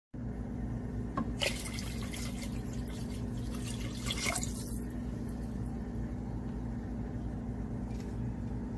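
Water poured from a measuring cup into a pressure cooker pot of broth, splashing from about a second in until about five seconds in, over a steady low hum.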